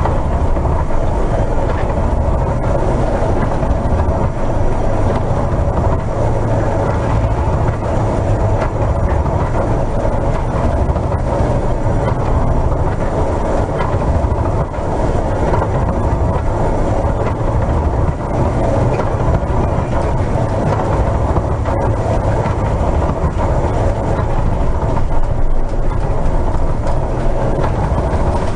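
Steady heavy rumble aboard a cargo ship in a storm, heard from the bridge: the ship's running and vibration mixed with wind and sea noise, unbroken throughout.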